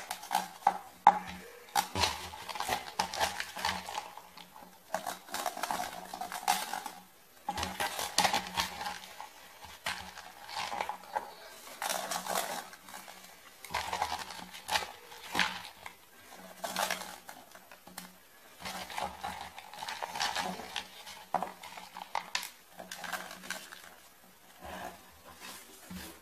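Chopped candle pieces clinking and rattling as they are dropped and pressed by hand into a cut-down aluminium soda can, in irregular runs of clicks and taps.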